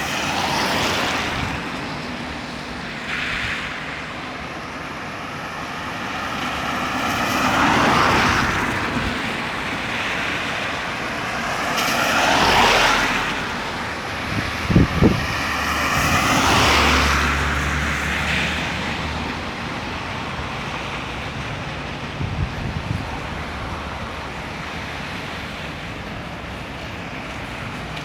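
Road traffic on a busy highway: vehicles passing one after another, each swelling and fading with a gliding engine note, over a steady background of road noise, with a few short knocks around the middle.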